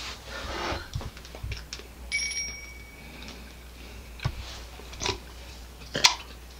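Quiet mouth sounds and a few sharp clicks as a jelly bean is chewed, with a short bell-like ding about two seconds in.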